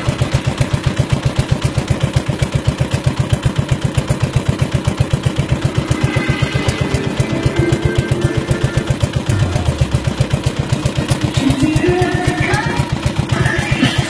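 Small boat engine running steadily with a rapid low thump, about six beats a second. Voices or singing come in over it in the second half.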